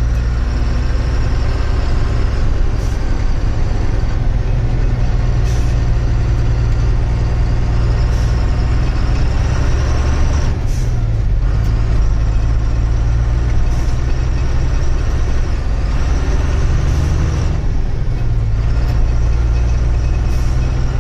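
Heavy truck's diesel engine running on the move, a steady low drone whose note changes about halfway through and again near the end, with a few short hisses.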